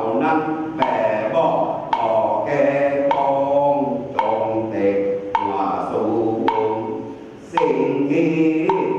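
Voices chanting a ritual chant, with a wood block struck about once a second to keep the beat.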